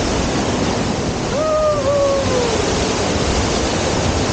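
Steady loud rush of moving water, with a short tone that glides down about a second and a half in.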